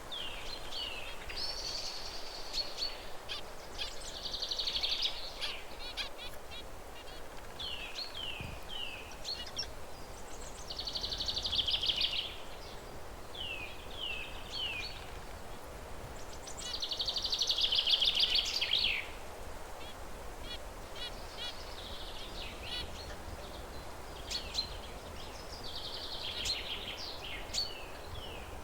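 Zebra finch singing: a song of short falling notes leading into a buzzy, nasal phrase, repeated several times over a steady background hiss. The loudest phrase comes about two-thirds of the way through.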